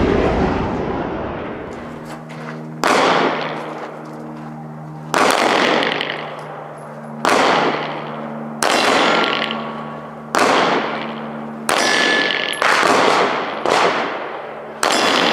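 Firearm shots, about ten of them, one every one to two seconds and coming faster near the end, each with a short ringing echo.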